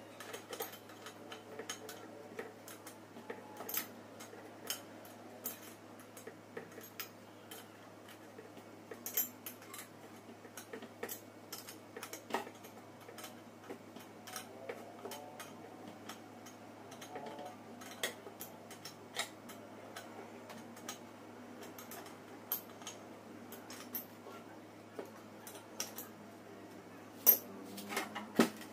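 Scattered small metallic clicks and clinks of metal parts and hand tools being handled during reassembly of a PCP air compressor, with two louder clacks near the end over a faint steady hum.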